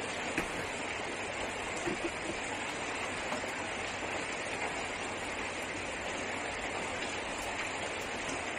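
Heavy rain falling steadily on the car's roof, heard from inside the car. A few light knocks sit on top, about half a second and two seconds in, as the portable gas stove is handled.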